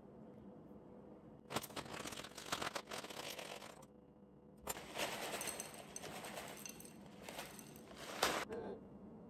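A stiff plastic granola bag crinkling and rustling in two long stretches as it is cut open with kitchen scissors and granola is shaken out of it into a glass cup, with a sharp clack near the end.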